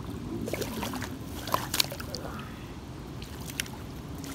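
Shallow water sloshing and lapping at the bank as a hooked carp is drawn into the shallows, with a few sharp ticks a little under two seconds in.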